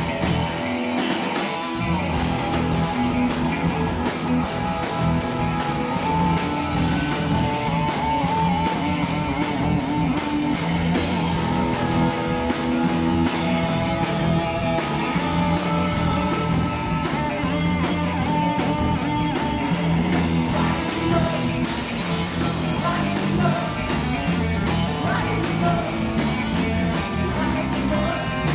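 Live rock band playing: electric guitars and bass over a drum kit keeping a steady beat.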